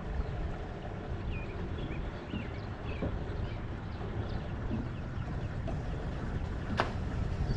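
Wind rumbling on the microphone while small birds chirp in short, quick calls. A single sharp click comes near the end.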